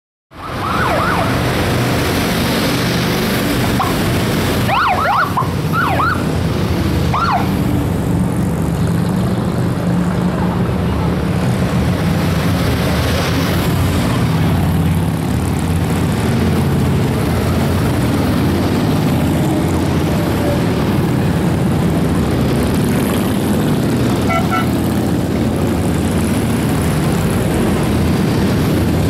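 A long column of touring and cruiser motorcycles riding past in a steady, loud mass of engine rumble. A few short siren whoops sound within the first eight seconds.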